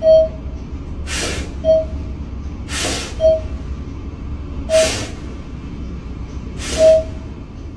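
Small curly-coated dog sniffing hard at a door gap, with four forceful snorting exhalations about every two seconds and short high whines in between.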